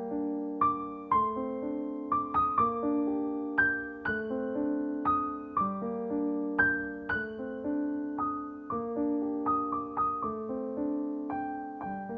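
Background music: a gentle piano melody over sustained chords, notes struck and decaying one after another.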